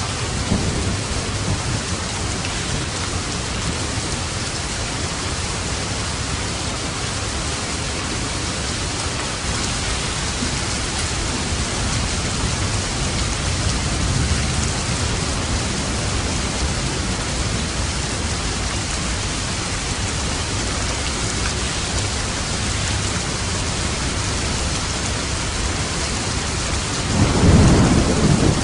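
Steady heavy rain falling on a roof, with thunder rumbling low in the distance and a louder roll of thunder rising near the end.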